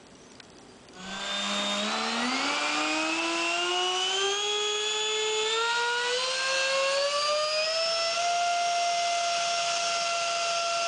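A 70 mm eight-bladed electric ducted fan, driven by a 4800 kV E-flite brushless motor on a 3-cell battery, run up for a static thrust test. It starts about a second in, and its whine rises steadily in pitch for several seconds, then holds a steady pitch for the last few seconds.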